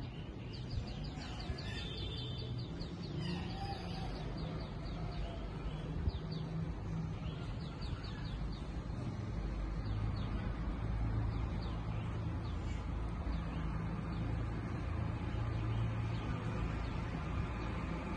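Birds chirping and trilling in quick repeated notes, mostly in the first half, over a steady background hiss. A low steady rumble builds up about halfway through and stays to the end.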